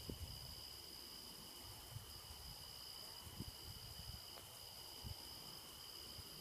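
Steady insect chorus, a continuous high trill at two pitches, with a few soft low thumps.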